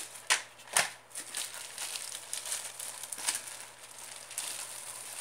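Packaging crinkling and rustling as it is handled and pulled open, with a couple of sharper crackles under a second in.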